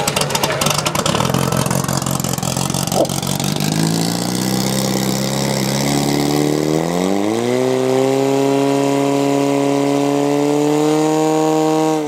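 Portable fire pump's engine running hard. Its pitch rises from about four seconds in, then holds at high, steady revs as it drives water through the hoses to the nozzles.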